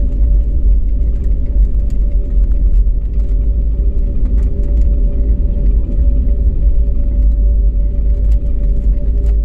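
Inside an airliner's cabin during the landing roll: a loud, steady low rumble of engines and wheels on the runway, with steady engine tones over it and light scattered rattles.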